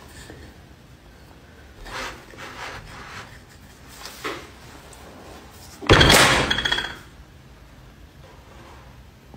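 A wooden rolling pin knocking and rolling on a board a few times, then one much louder smack about six seconds in as it slams down into a pile of flour.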